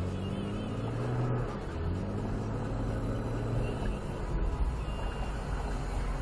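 Car engine and road noise heard from inside the cabin while driving, the engine note climbing and dropping back twice as the car gathers speed.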